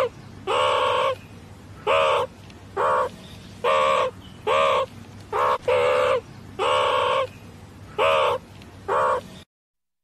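Meerkats giving a series of harsh calls, about one a second, each short call arching slightly in pitch, over a steady low hum.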